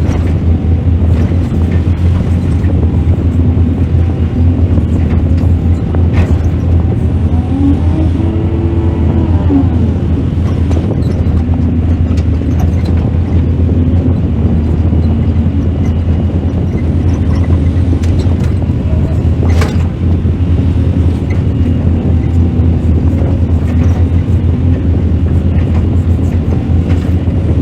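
Mining excavator's diesel engine running steadily with a deep hum, a whine rising and falling in pitch about eight seconds in, and a few sharp knocks.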